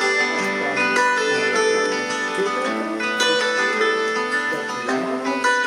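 Background music led by plucked acoustic guitar, with picked notes ringing over one another.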